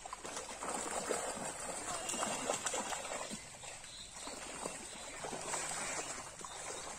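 Water splashing and sloshing as big fish, trapped by a seine net in the shallows, thrash at the surface of a pond: a dense run of irregular splashes.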